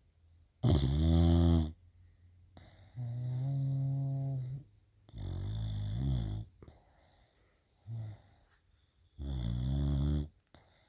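Bulldog snoring: five rattly, pitched snores about every two seconds, four long and one short, the first the loudest.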